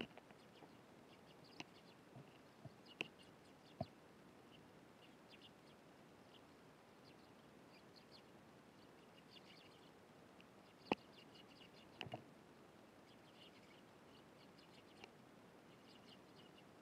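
Faint, scattered short chirps of Eurasian tree sparrows, broken by a few sharp taps. The loudest tap comes about eleven seconds in.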